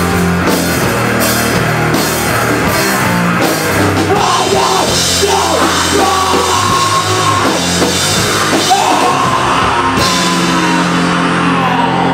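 Live rock band playing loud: electric guitar, bass guitar and drum kit with crashing cymbals, and a singer yelling into the microphone. About ten seconds in the cymbals stop and the guitars and bass hold a ringing note.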